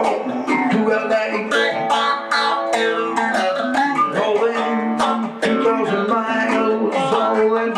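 Hollow-body electric guitar playing an instrumental break: a continuous run of picked notes and chords, with no singing.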